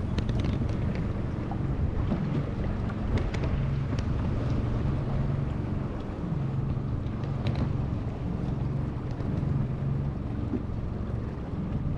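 Boat's outboard motor running steadily a little above idle, a low even hum, with water rushing and splashing along the hull and wind on the microphone.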